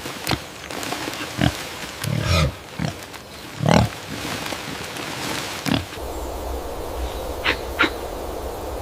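An animal giving several short, low calls, with clicks and rustles between them. The calls come about two, three and a half and nearly six seconds in. About six seconds in, a steady low rumble takes over the background and two brief higher calls follow.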